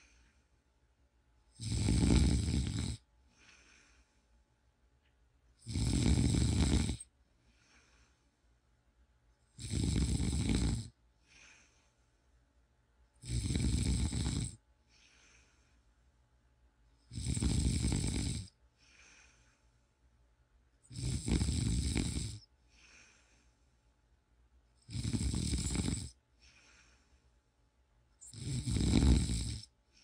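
A man snoring in his sleep: eight loud snores, one about every four seconds and each about a second long, with a faint breath between them.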